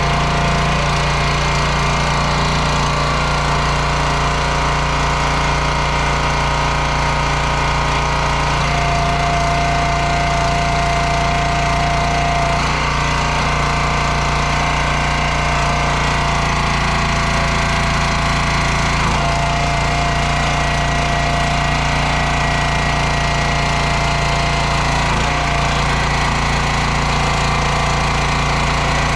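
Small gas engine of a 22-ton hydraulic log splitter running steadily, driving the hydraulic pump while the ram is cycled on the rebuilt cylinder. A higher steady whine comes in for a few seconds partway through.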